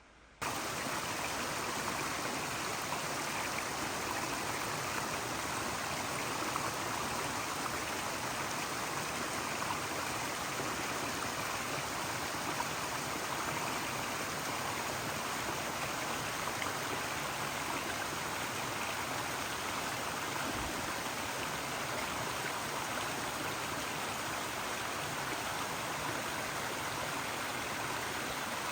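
Mountain stream running: a steady rush of flowing water that cuts in abruptly just after the start.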